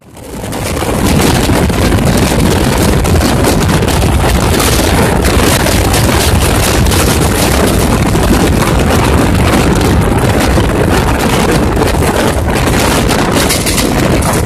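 Loud, steady wind buffeting the microphone over the rumble of a moving express train, taken at an open carriage window. It fades in about a second in.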